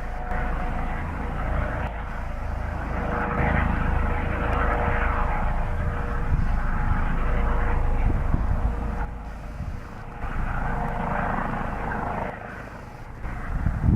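Helicopter running, a steady low rotor rumble with a thin turbine whine held at a constant pitch; the sound drops back briefly twice in the second half.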